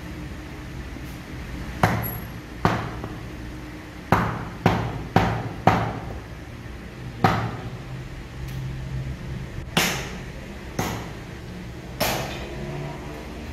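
Heavy meat cleaver chopping through meat into a wooden stump chopping block: about ten sharp chops at an uneven pace, four of them in quick succession a few seconds in.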